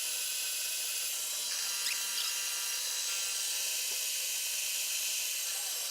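Drill press running steadily as its bit bores a hole through the knife's handle.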